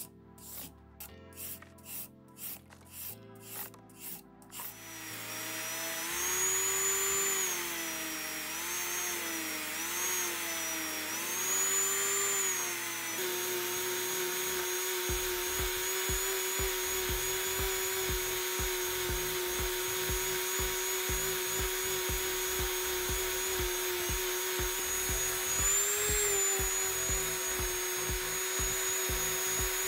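A hand file stroking a knife handle, about two strokes a second, for the first few seconds; then a handheld rotary tool starts and runs with a steady whine, grinding the handle with a small abrasive wheel. Its pitch dips and wavers as the wheel is pressed into the handle, then holds steady for the rest.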